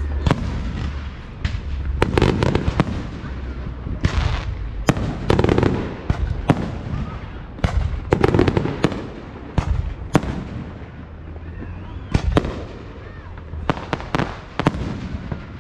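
Aerial fireworks shells bursting: a long string of sharp bangs, some in quick clusters, with crackling between them.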